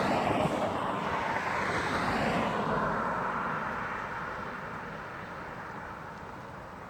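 A passing vehicle: a broad, steady rush that fades away over several seconds.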